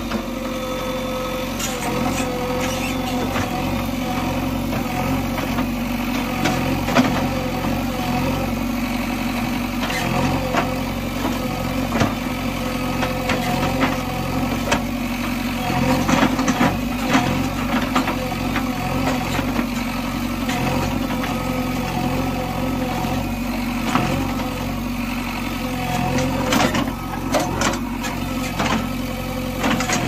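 JCB 3DX Xpert backhoe loader's 49 hp diesel engine running steadily while the backhoe digs. Short knocks and clanks come and go throughout, more of them about halfway through and again near the end.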